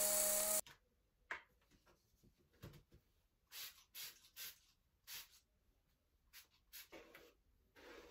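A steady hiss-and-hum that cuts off abruptly about half a second in, then a series of soft swishing strokes as hair is brushed and a flat iron is drawn through it, in small clusters of two or three.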